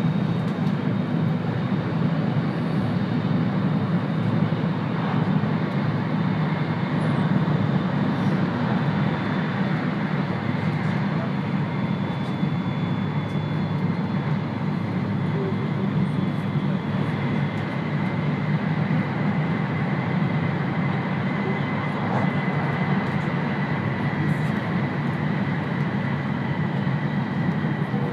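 Steady running noise of an E2 series Shinkansen train, heard from inside the passenger car: a low, even rumble with faint steady high tones above it.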